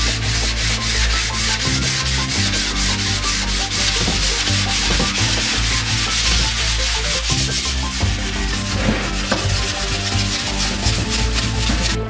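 Hand wet-sanding of a painted carbon bicycle frame with abrasive paper: fast, even rubbing strokes, several a second, with a gritty hiss.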